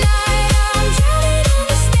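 Background electronic dance music with a steady, driving drum beat and sustained synth lines, in an instrumental passage without singing.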